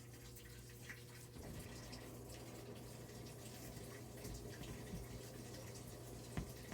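Washing machine filling with water: a faint rushing that starts about one and a half seconds in, over a steady low hum. A single sharp click near the end.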